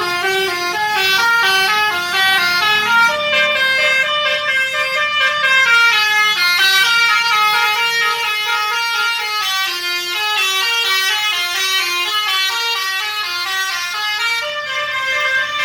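Telolet bus horn, a multi-tone musical horn, playing a fast melody of short stepped notes without a break.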